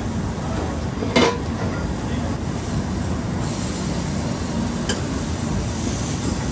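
Beef smash-burger patties sizzling on a flat-top griddle, the sizzle growing louder about halfway through. There is one sharp clack a little over a second in and a steady low rumble underneath.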